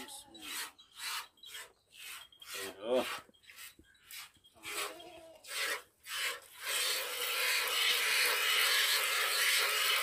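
Goat being milked by hand into a plastic bucket: squirts of milk hiss into the milk in a steady rhythm of about two a second, merging into a continuous hiss about two-thirds of the way through.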